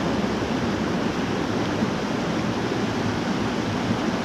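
Small rocky mountain creek running over boulders in shallow riffles: a steady rush of flowing water.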